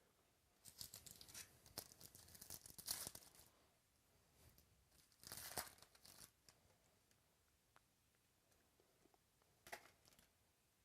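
Crinkling and tearing of plastic card packaging as trading cards are handled. It comes in three bursts: a long one early, a shorter one in the middle, and a brief one near the end.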